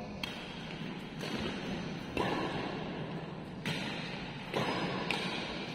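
Badminton rackets hitting a shuttlecock back and forth in a doubles rally: about six sharp strikes at uneven intervals, each ringing on briefly in a large echoing hall.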